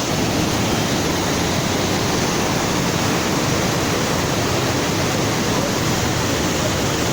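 Flowing water, a steady, dense rushing with gentle lapping close by.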